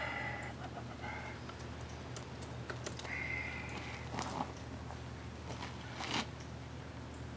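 Scattered small metal clicks and taps of hand tools working on an outboard motor's powerhead to get a rectifier off, with two louder knocks about four and six seconds in, over a steady low hum.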